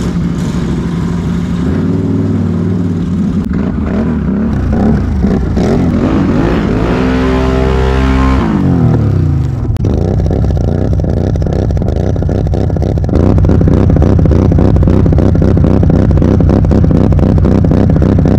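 Can-Am Renegade XMR 1000R ATV's V-twin engine revving hard. About seven seconds in its pitch climbs steeply and then drops back. From about ten seconds it holds a steady high pitch, louder from about thirteen seconds, while the quad ploughs through deep snow.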